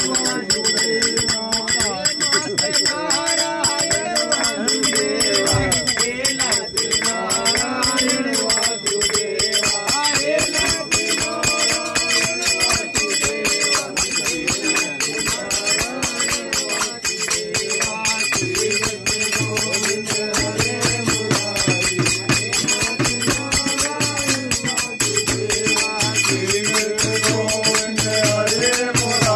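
Group of men singing a Hindu devotional bhajan to a hand-beaten frame drum and small brass hand cymbals (manjira) clinking in a steady, fast rhythm.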